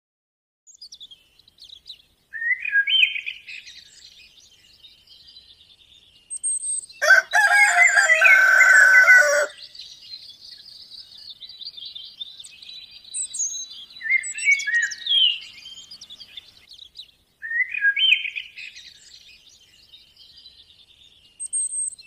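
Songbirds chirping in short high phrases that come back every few seconds, with a rooster crowing once, loudly, about seven seconds in and lasting about two and a half seconds.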